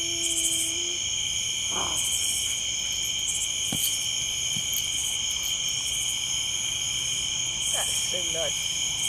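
Night chorus of insects such as crickets: two steady, shrill, unbroken trills, with a higher buzzing that pulses on and off every second or so.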